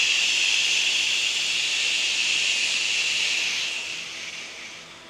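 A long, steady 'shh' exhaled through the lips, the liver healing sound of a breathwork exercise, tapering off and ending about four seconds in.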